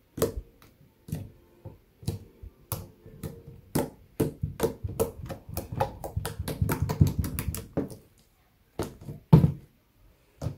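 Fluffy slime made with glue and shaving cream being squeezed and poked by hand: a run of wet clicks and pops from trapped air. They come thickest through the middle, then after a short pause a couple of louder pops.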